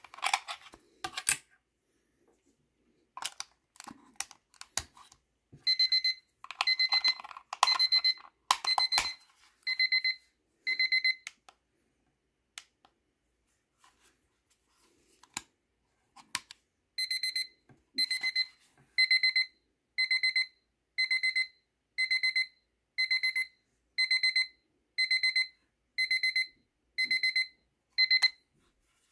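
Seiko BC415Y alarm clock's electronic alarm beeping, a high, rapidly pulsed beep about once a second: a short run of about six beeps, then after a pause a steady run of about a dozen that stops near the end. Clicks from handling the clock come first.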